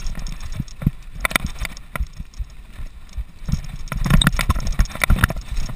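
Mountain bike rattling over a rough dirt trail at speed: a string of sharp clicks and knocks from the chain and frame on bumps over a steady low rumble, busiest a few seconds in.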